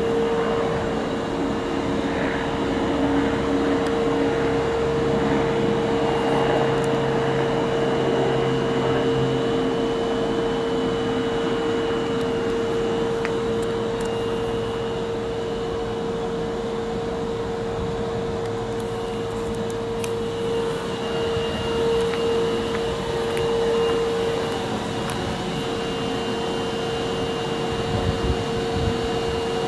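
Steady running hum of an Osaka Metro Tanimachi Line subway train's equipment, with a constant whine and a fainter high tone throughout.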